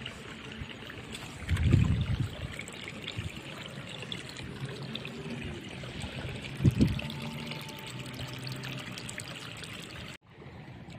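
Water trickling and pouring steadily, with two dull low thumps about five seconds apart.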